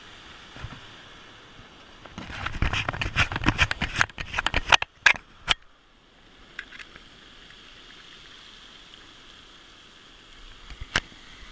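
Surf washing over a pebble beach as a steady rushing sound. From about two seconds in to five and a half, a dense stretch of close crackling and knocking rises over it.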